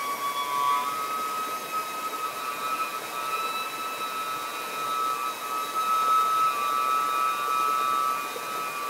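Saxophone holding one long high note, stepping up slightly in pitch about a second in, over the steady rush of a stream's rapids.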